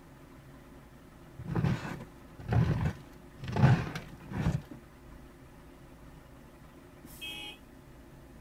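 Four rough brushing strokes against the car's windshield, heavy and thudding as they carry through the glass, as a hand clears snow at its base. A short electronic beep follows near the end.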